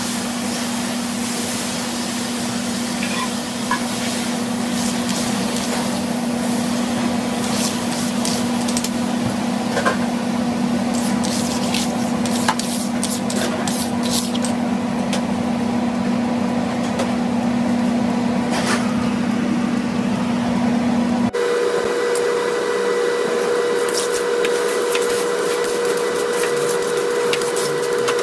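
Warm rinse water sizzling and bubbling on a hot flat-top grill plate, with a squeegee and scrub pad scraping and clicking across the steel. A steady hum runs underneath and jumps to a higher pitch about three-quarters of the way through.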